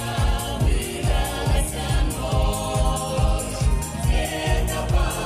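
A mixed vocal ensemble of men and women singing a song in harmony over amplified music with a steady, heavy bass-drum beat of about two and a half beats a second.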